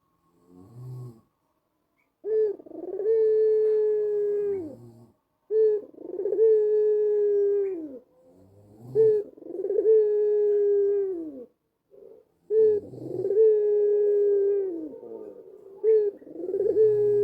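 White ringneck dove (white Barbary dove with a black neck collar) cooing: about four calls in a row, each a short low note followed by a long drawn-out coo that drops in pitch at the end.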